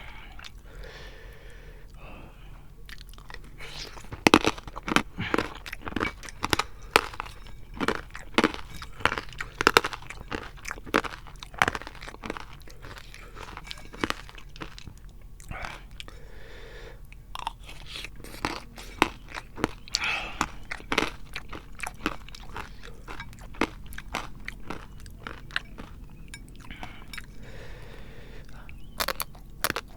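Close-miked eating: a person crunching and chewing, with many sharp crunches in quick succession from about four seconds in and a lull shortly before the end.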